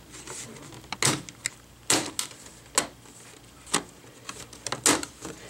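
Plastic screen bezel of an Acer Aspire E15 laptop being pried off by fingernails: a series of short, sharp clicks, spaced irregularly about a second apart, as its snap-fit clips come free of the screen assembly.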